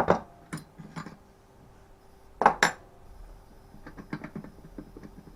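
Hammer blows on a spark plug spanner held on a Stihl FS36 strimmer's crankshaft, striking to knock the flywheel loose from the shaft. There are a few sharp metallic hits at the start, then two hard strikes in quick succession about two and a half seconds in, followed by light metal clinks.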